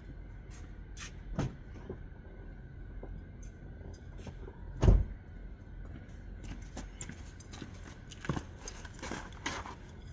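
Scattered metallic knocks and clicks from hand tools and steering parts being handled during tie rod removal. There is one loud thump about five seconds in and a cluster of lighter knocks near the end.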